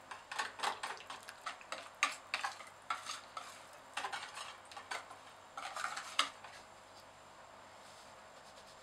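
Metal wire whisk stirring cocoa and flour into wet chocolate cake batter, clicking and scraping against the mixing bowl in quick, irregular strokes. The whisking stops about six and a half seconds in.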